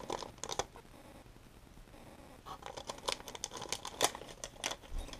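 A paper-backed packet of Mustad fishing hooks being opened by hand: the packaging crinkles and rustles in short crackly bursts near the start and again through the second half.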